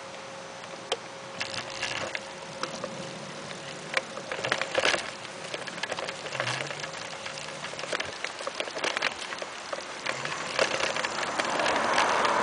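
E-bike rolling over grass and onto pavement: irregular clicks, crackles and rattles from the tyres and frame. A faint steady whine fades out about a second in.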